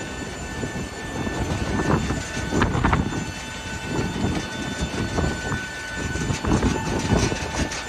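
Airport apron noise beside a parked Boeing 737: a steady machinery whine under uneven low rumbling that rises and falls every second or so.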